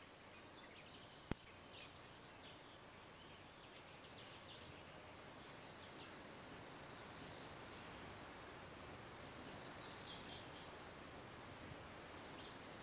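Faint outdoor garden ambience: scattered short bird chirps over a steady high-pitched whine and low hiss, with a single click a little over a second in.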